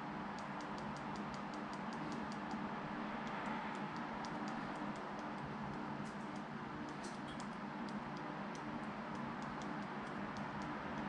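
Smartphone on-screen keyboard clicking as someone types: quick, irregular light ticks, several a second, over a steady low hum.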